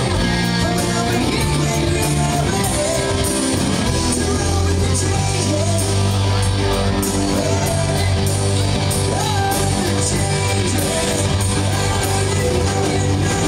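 Live rock band playing loudly: a man singing over electric guitars, bass and drums.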